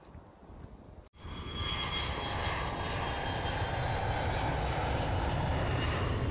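Faint outdoor ambience cuts out about a second in, then a steady airplane-engine sound effect swells in over half a second and holds.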